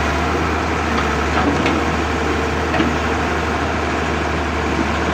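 Heavy construction machinery's diesel engine running steadily with a deep low hum, with a few faint clanks in the middle.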